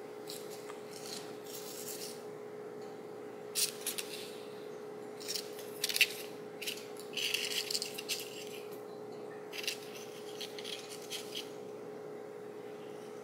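Paper cutouts rustling and scraping in short, scattered bouts as they are handled and turned over on the table, over a steady hum.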